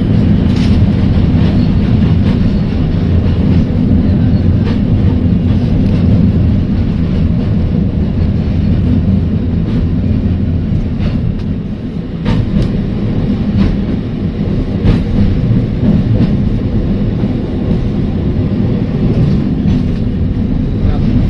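Heritage electric tram running along the track, heard from aboard: a steady low rumble from the wheels and running gear, with occasional sharp clicks and knocks from the rails. The rumble eases briefly about twelve seconds in, and several clicks follow close together.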